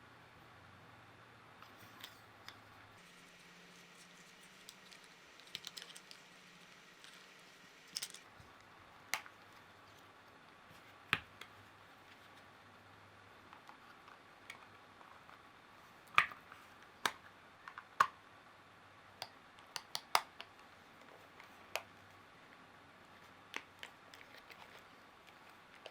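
Irregular sharp clicks and taps of small hard parts being handled, a dozen or more spread unevenly, the loudest clustered past the middle, over a faint steady hum.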